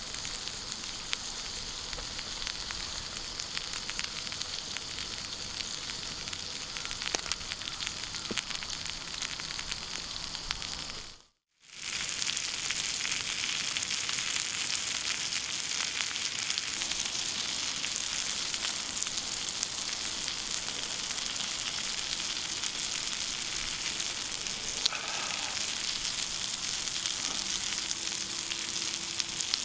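Food sizzling in a skillet: a steady frying hiss dotted with fine spatters. It drops out for a moment about eleven seconds in, then carries on.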